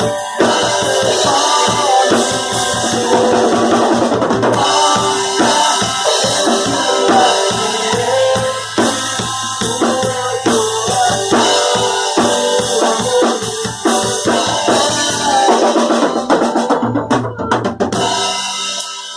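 A band playing, with the drum kit to the fore: bass drum and snare hits over sustained pitched instruments. Near the end comes a quick run of drum hits, and then the music drops away.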